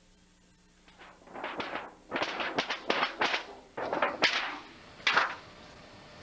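Irregular rustling and crunching of someone pushing through dry brush and undergrowth, about a dozen short noises that start about a second in and stop near the end.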